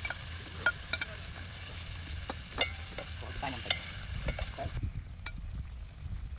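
Food sizzling in a pan while it is stirred, with several sharp knocks of the utensil against the pan. The sizzle cuts off suddenly about three-quarters of the way through, leaving scattered knocks over a steady low rumble.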